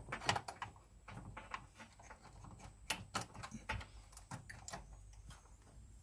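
Faint scattered light clicks and knocks at uneven intervals, handling noise around an open rack server's metal chassis, over a faint low steady hum.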